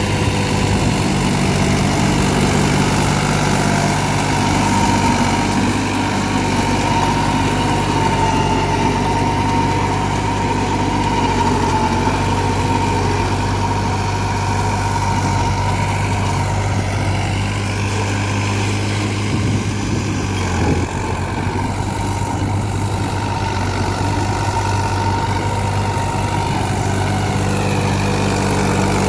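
New Holland 3600-2 tractor's three-cylinder diesel engine running steadily while driving a rear-mounted rotary tiller through field soil, with a steady high whine over the engine sound.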